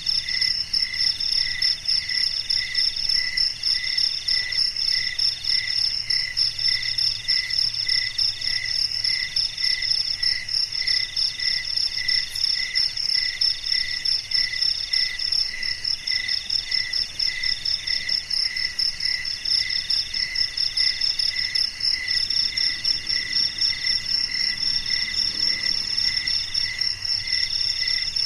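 Night chorus of crickets and other insects: a steady high trill over a lower chirp that repeats evenly, with a third call that comes and goes in stretches of about a second.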